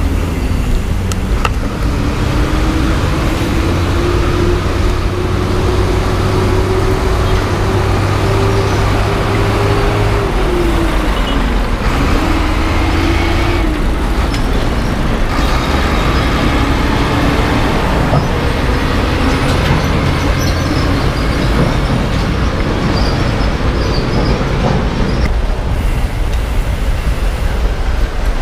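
A moving road vehicle's engine running under steady road and traffic noise, its pitch climbing slowly as it gathers speed, dropping sharply about twelve seconds in, then climbing again.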